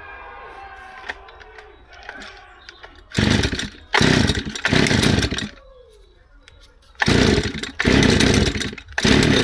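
Stihl FS160 two-stroke brushcutter being pull-started: six loud bursts of about half a second to a second each, in two groups of three, beginning about three seconds in.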